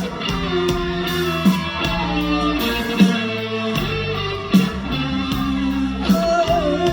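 Live band music, an instrumental passage led by guitar, with a strong drum hit about every second and a half.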